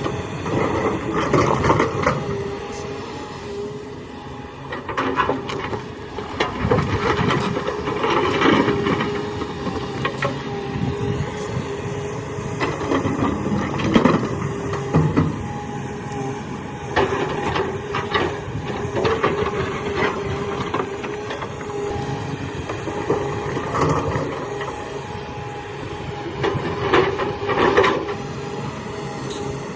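Kobelco excavator's diesel engine running steadily under load, with the bucket scraping and rocks clattering and knocking at irregular moments as it digs.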